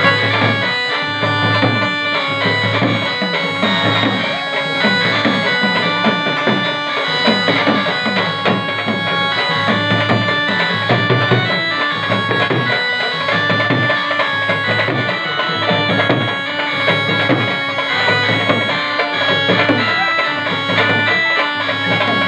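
Background music: an Indian folk dance tune with a wind-instrument melody over a steady drum beat.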